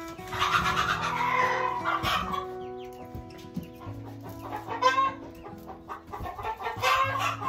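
Chickens clucking: a loud bout of calls in the first two seconds, then shorter calls about five and seven seconds in. Background music runs underneath.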